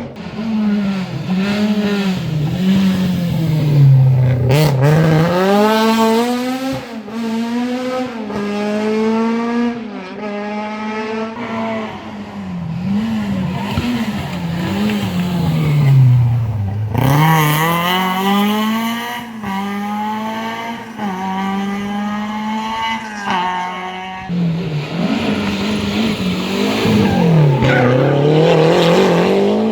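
Historic rally car engines revved hard on a stage. The pitch climbs and drops over and over through gear changes and lifts for corners, breaking off sharply three times as a new run starts.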